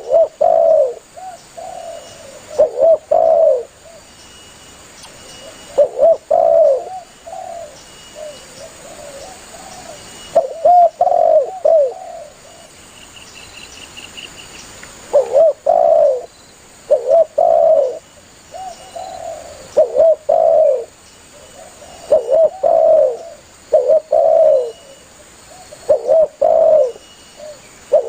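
Spotted dove (tekukur) cooing: short phrases of a few low, throaty coos, repeated every two to four seconds with brief pauses between them.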